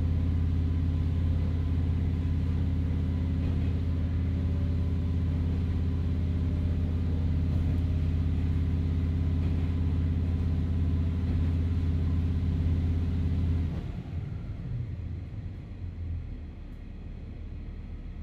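Heard from inside a KiHa 40 diesel railcar: the diesel engine runs steadily under power with a deep, even hum. About 14 seconds in, the engine note cuts off suddenly and only a quieter rolling rumble of the wheels on the track remains. This is typical of the driver shutting off power to coast toward the next station.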